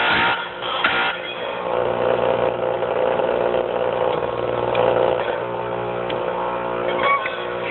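Oregon bench chain-grinder's electric motor running with a steady hum, the spinning wheel grinding a chainsaw chain tooth in two short bursts at the start and about a second in, then spinning free.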